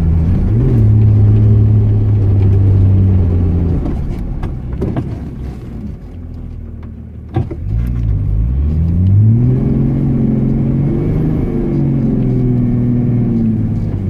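Off-road SUV engine heard from inside the cabin while driving on a snowy forest track. It runs steadily, eases off and quietens about four seconds in, then revs up again around eight seconds and holds the higher speed. A single sharp knock comes just before the revving starts.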